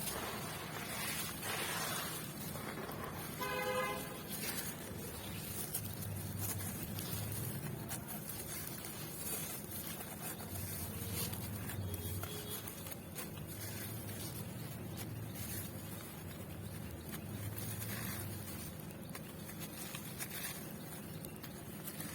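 Steady background traffic noise with a low hum, and one short vehicle horn toot about three and a half seconds in.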